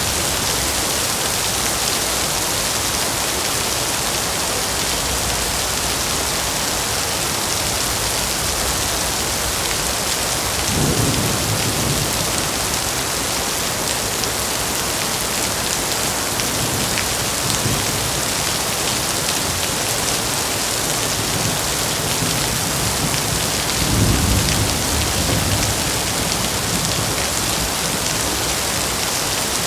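Heavy rain falling steadily, with low rumbles of thunder about 11 seconds in, again around 17 seconds, and a stronger one around 24 seconds.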